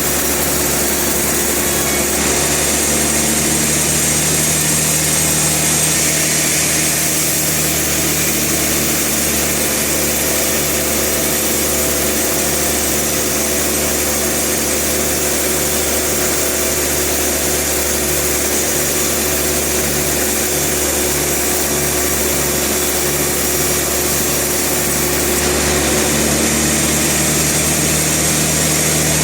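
Sawmill saw running steadily under load, an engine-driven blade cutting through a log with a constant machine drone and hiss.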